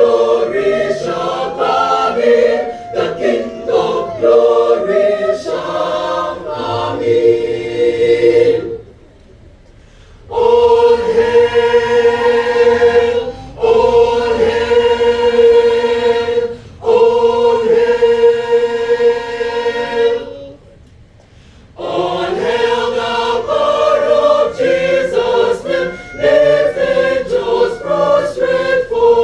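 Choir singing, holding three long sustained chords in the middle with brief breaks between them, and two short pauses before and after them.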